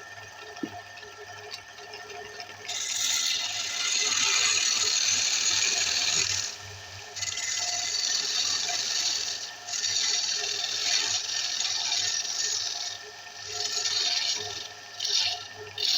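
Wood lathe running with a steady motor hum. From about three seconds in, a loud hissing scrape of wood being worked on the spinning piece comes and goes in stretches of a few seconds, with short breaks.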